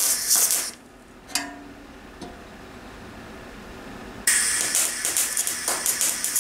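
MIG welder arc crackling and hissing as it welds stress cracks in a moped's steel gas tank: one burst that stops under a second in, a single click about a second and a half in, then a longer burst that starts about four seconds in.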